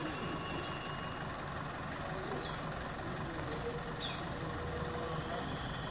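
Steady low rumble of a truck or bus engine running, with a few short high chirps about halfway through.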